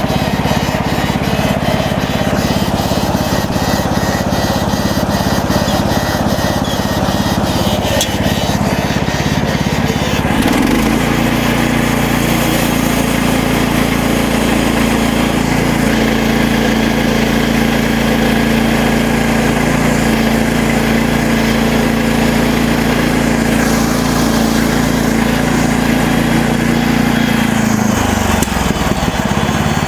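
MechMaxx SM32 bandsaw sawmill running steadily while milling a cedar log. About ten seconds in the machine's note changes and holds steady at the new pitch, then shifts back shortly before the end.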